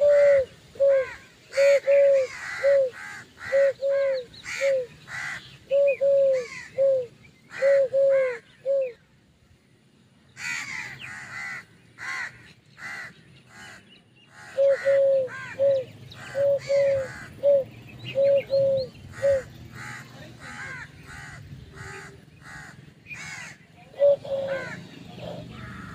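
Birds calling: one bird gives short, evenly repeated calls about two a second, in runs of several seconds that stop and start, while other birds chirp in the gaps.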